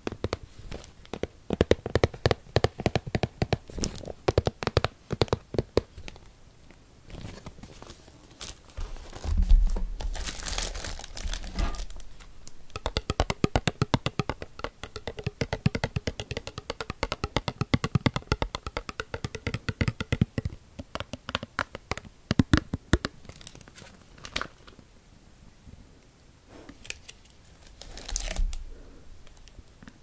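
Thin clear plastic packaging crinkling and crackling as a wagashi sweet is handled and unwrapped, close-miked. There is a dull thud about a third of the way in.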